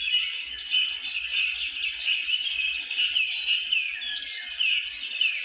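Many birds chirping and calling at once in a dense chorus of short, overlapping, falling calls.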